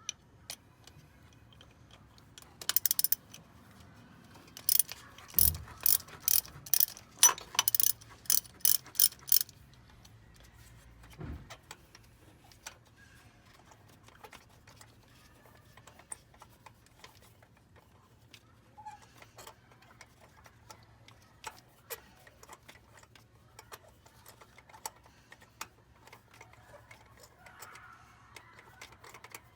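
Socket ratchet wrench clicking in a run of quick strokes, about two a second, turning a spark plug in the engine. Scattered light clicks and taps of tools follow.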